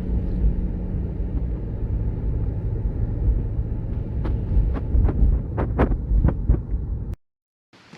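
Steady low rumble like road noise from a moving vehicle, with a quick run of sharp clicks or taps over its last few seconds. It cuts off abruptly near the end.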